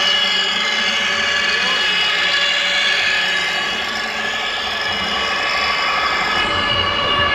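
Radio-controlled scale fire trucks driving, with a steady high-pitched motor whine and several steady tones, over crowd chatter in a large hall.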